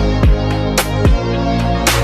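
Background music with a steady beat: deep bass notes, booming kick drums and sharp percussion hits.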